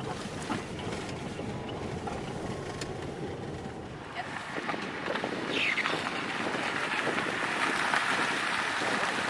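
A car driving on a backroad, a steady rush of road and tyre noise that grows louder about halfway through.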